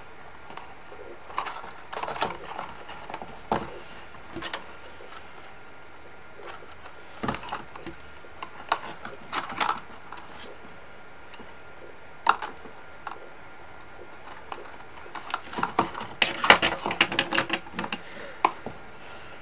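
Cardstock rustling and clicking in the hands as a small die-cut paper box is pressed and fitted together: scattered short clicks, busier near the end.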